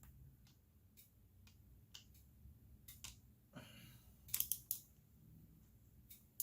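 Faint, scattered clicks and light clinks of hand tools being handled, with a cluster of sharper clicks about four and a half seconds in.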